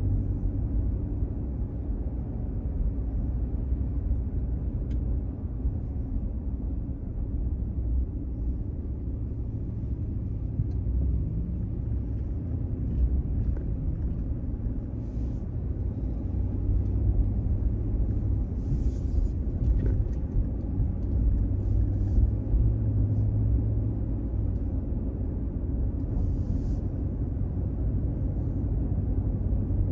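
Steady low rumble of a car's engine and tyres on the road, heard from inside the cabin, with a few brief faint hisses.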